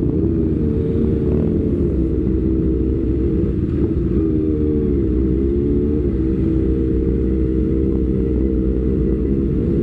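Motorcycle engine running on the move, a loud steady drone whose pitch dips and climbs back a few times as the throttle is eased and reopened.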